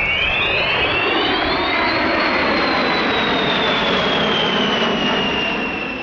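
B-52 bomber's eight jet engines passing at full power: a steady roar under a high-pitched, scream-like whine that climbs over the first two seconds, then slowly sinks, and the sound fades near the end.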